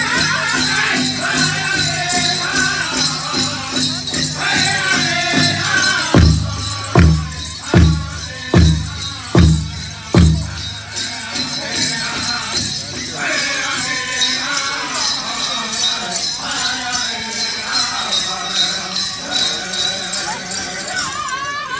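Pow wow drum group singing over the big drum's steady beat, with bells jingling. About midway, six much heavier drum strokes come a little under a second apart before the steady beat resumes.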